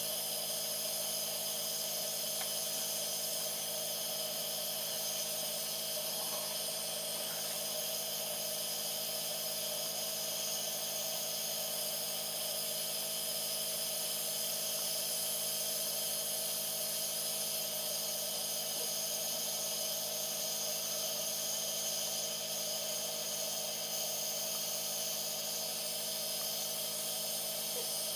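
Steady hiss with a constant hum beneath it, unchanging throughout.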